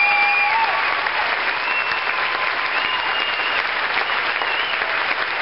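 A large crowd applauding steadily. The sound cuts off abruptly at the end.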